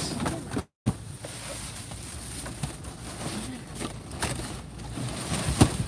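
Rustling and light knocks of cardboard boxes and plastic bags being rummaged through in a dumpster, over steady outdoor background noise. The sound cuts out completely for a moment just under a second in.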